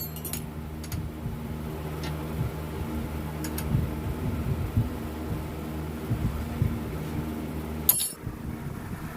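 A steady low machine hum, with a few light clicks and taps and a sharper click near the end.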